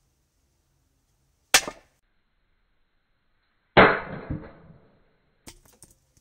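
A club hammer dropped onto a ceramic-paste roof tile lands with a dull thud about four seconds in, cracking the tile in half. A sharp click comes a couple of seconds before it, and a few light knocks follow the impact.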